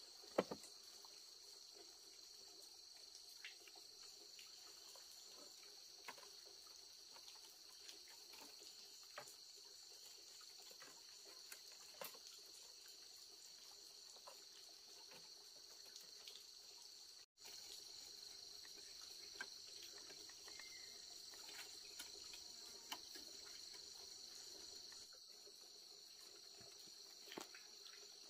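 Faint, steady high-pitched insect chorus of crickets, with scattered light taps and clicks over it.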